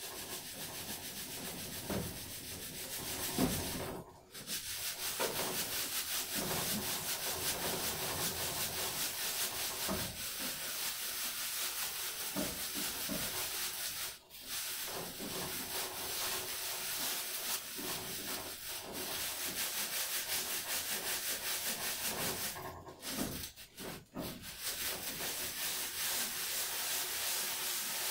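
Sand being sifted through a wooden-framed screen sieve that hangs from ropes and is shaken back and forth: a continuous rasping hiss of sand scraping and falling through the mesh, broken by a few brief pauses.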